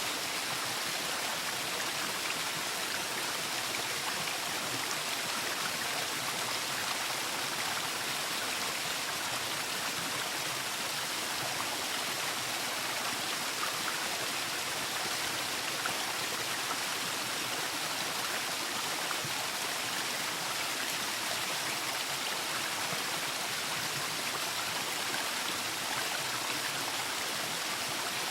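Waterfall: a steady, even rush of falling and splashing water, strongest in the hiss range.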